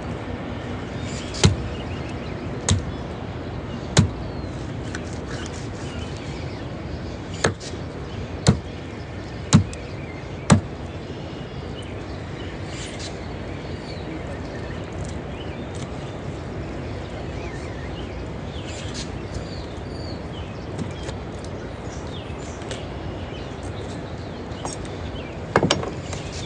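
Steady outdoor background noise, with seven sharp clicks or knocks spread over the first ten seconds or so and a short burst of them near the end.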